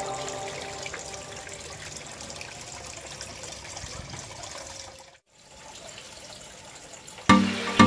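Water trickling and splashing into the fish pond of a small aquaponic setup from its PVC pipe and hose outlets, a steady watery hiss that cuts out briefly about five seconds in. Background music with a beat comes in near the end.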